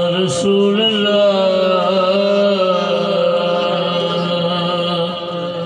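A man's voice chanting a naat in long, drawn-out notes that waver and slide in pitch, amplified through a microphone and loudspeakers.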